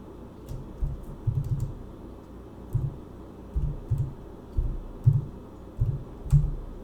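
Typing on a computer keyboard: irregular key presses, heard mostly as dull low thumps with faint clicks on top.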